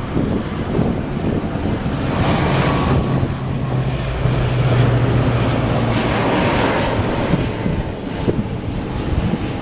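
ATR72-600 turboprop airliner's engines and propellers running as it departs. A steady drone with a low hum swells to its loudest in the middle and then eases off.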